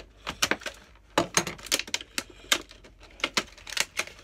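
Stiff clear plastic blister packaging crackling and snapping in an irregular string of sharp clicks as it is cut and pried open with a Stanley knife.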